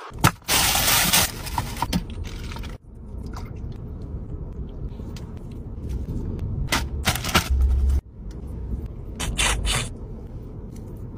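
Scraping and rustling of a hand working through rice and meat on a metal platter, with scattered short clicks, over a steady low rumble of a car cabin. A loud rush of noise fills the first second or so, and the sound breaks off abruptly twice.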